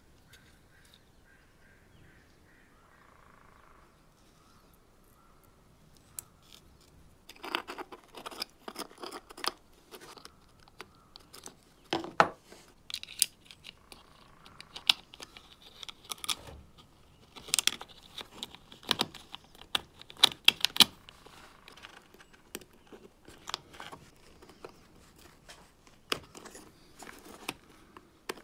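Small plastic and metal parts clicking and tapping in the hands as push-button switches and their brass contacts are fitted onto a lamp's switch plate. The first few seconds are quiet handling; from about seven seconds in come many irregular sharp clicks and knocks.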